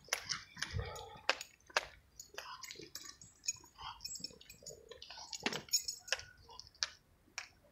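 A French bulldog on a leash snuffling and scuffing about on pavement, among irregular sharp clicks.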